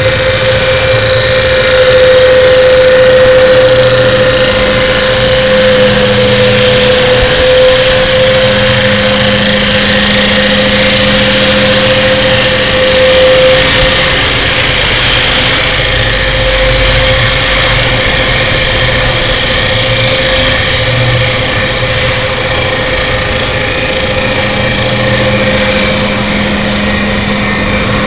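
CNC wood-turning lathe running, a steady motor whine over a continuous rushing machining noise.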